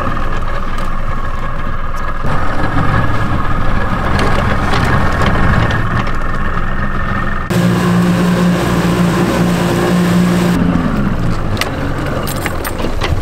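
Outboard jet-drive boat motor running steadily under way. Its tone changes about seven seconds in, and the revs fall away near the end as the boat slows.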